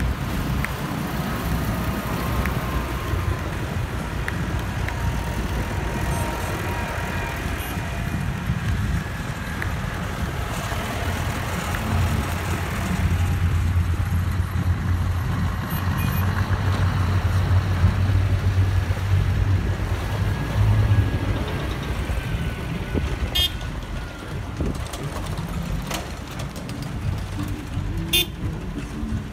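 A slow convoy of tractors, then heavy Scania lorries and cars, driving past with diesel engines running, the low engine drone loudest about halfway through as the lorries pass. Horns toot in short beeps, several of them near the end.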